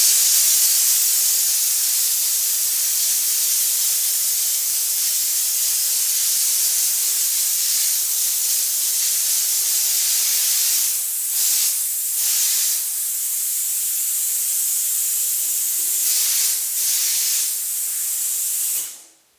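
Drywall texture hopper gun spraying texture onto a patched wall: a steady, loud hiss of compressed air. It dips briefly a few times partway through as the trigger is eased, then cuts off suddenly near the end.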